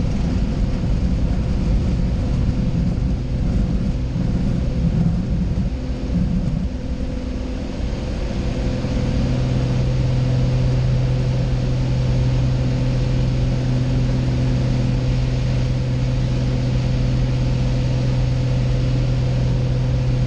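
Propeller engine of a small high-wing plane heard from inside the cabin: it runs unevenly at low power at first, then about eight seconds in it goes up to a steady full-power hum for the takeoff run and climb.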